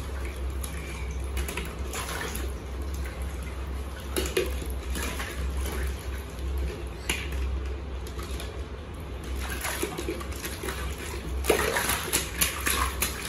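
Water splashing and sloshing in a small inflatable paddling pool as a child's hands and floating plastic rings and balls move through it, with a steady low hum underneath. The splashing gets louder and busier near the end.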